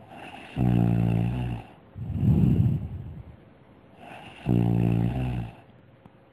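Snoring, one breath about every two seconds, alternating a steady droning snore with a rougher rattling one.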